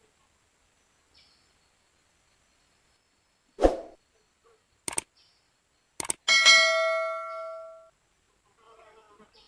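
A dull knock, a few sharp clicks, then a single metallic ding, struck once and ringing down over about a second and a half.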